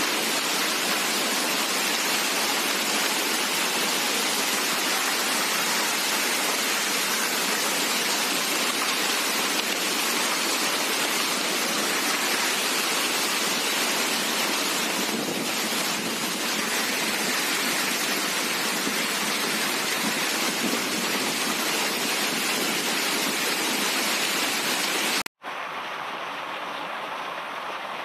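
Heavy hailstorm: hailstones pelting down onto the ground and foliage in a steady, dense rush. About 25 seconds in, the sound cuts out for an instant and comes back a little quieter.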